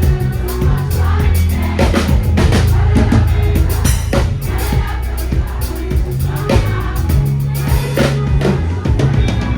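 Band music with drum kit and a strong, sustained bass line.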